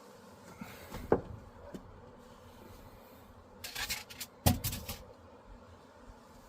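A few knocks and a short clatter of hard objects being handled during work on the van's shifter, the loudest a sharp knock about four and a half seconds in.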